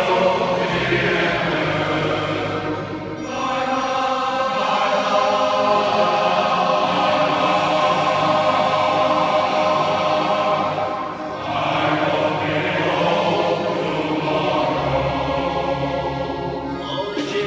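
Large male shanty choir singing in harmony under a conductor, in a reverberant church, with short breaths between phrases about three seconds in and about eleven seconds in.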